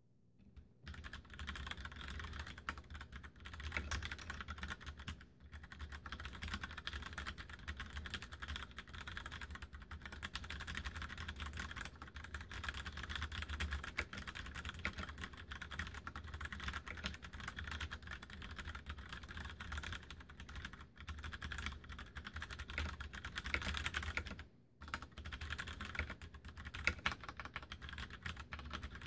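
Continuous fast typing on an Mstone Groove87 mechanical keyboard with tactile brown switches: a dense, steady stream of key clacks with short pauses about five seconds in, around twenty-one seconds and near twenty-four seconds.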